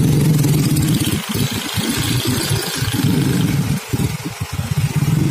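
Engines of motorcycles, a car and a light truck running close by in slow-moving traffic, with a low steady engine note that dips briefly now and then.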